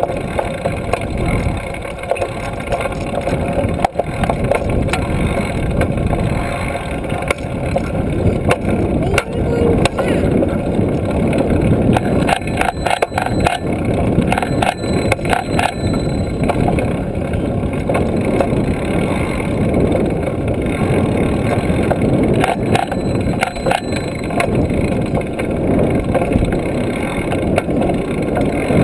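Wind buffeting the microphone of a handlebar-mounted camera on a moving trail-a-bike, with the bike rolling and rattling underneath. A run of sharp rattles or clicks comes about halfway through.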